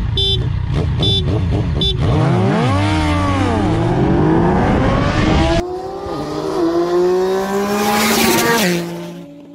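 Yamaha MT-09's three-cylinder engine blipped three times on the start line, then launching and accelerating hard, its pitch climbing and dropping through the gear changes, with wind buffeting the onboard microphone. About halfway, motorcycles at full throttle are heard from the roadside, their pitch rising as they approach and dropping sharply as they pass near the end.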